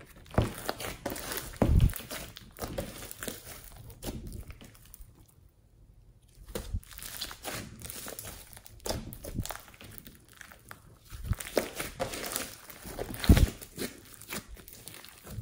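Thick bead-filled slime being stretched, pressed and squeezed by hand: many small irregular sticky clicks and pops, with a few dull thuds, the loudest about a second and a half in and again near the end. There is a short lull around the middle.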